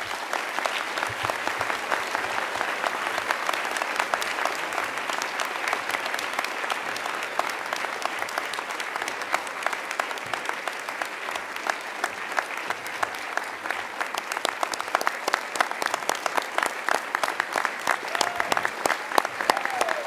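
Audience applauding: many hands clapping, dense and steady.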